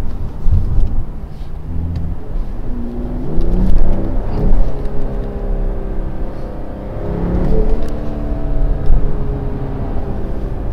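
Mercedes E450's 3.0-litre turbocharged inline-six heard from inside the cabin, revving up under acceleration over road and tyre rumble. The engine note rises in pitch twice, about three seconds in and again near the middle.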